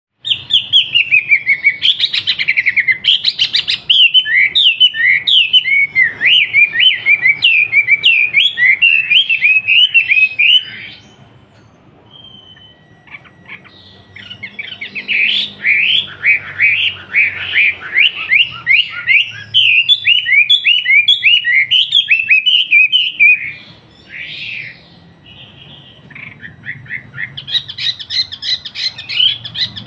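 A wambi songbird singing loud, fast runs of short sweeping whistled notes, breaking off twice for a few seconds, about eleven seconds in and again near twenty-four seconds.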